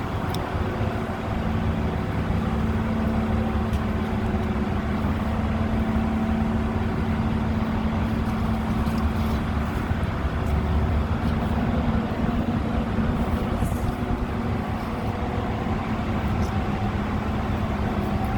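Steady engine drone, running at a constant speed with an even low rumble and a fixed hum, and a few faint short ticks over it.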